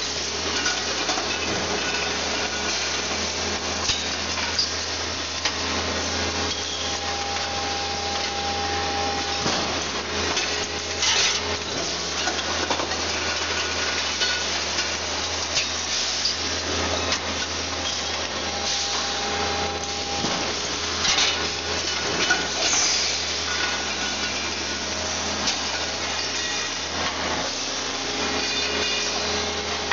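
Factory machinery on a steel gas-cylinder production line running with a steady hum, a whine that comes and goes a few times, and scattered knocks and clatter of metal parts.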